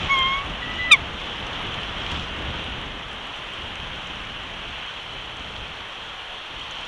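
Steady noise of wind and rain, with two short bird calls near the start: a brief honk-like call, then a sharp downward-gliding call about a second in.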